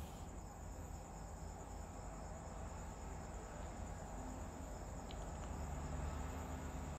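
Faint, steady high-pitched trill of crickets over a low background hum.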